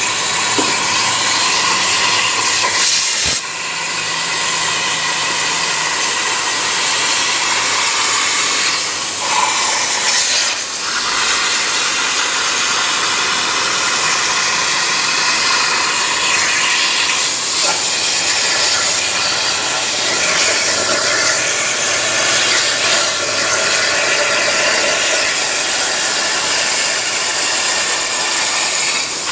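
CNC plasma cutter torch cutting metal: a loud, steady hiss of the plasma arc and its air jet, with short dips in level about three and eleven seconds in.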